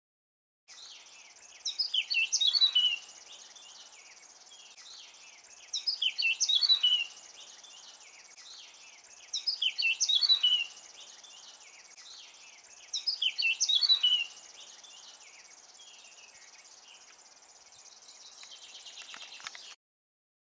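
Male Eurasian blackcap singing: four short, quick warbling phrases, each about a second long and about four seconds apart, over a steady high hiss.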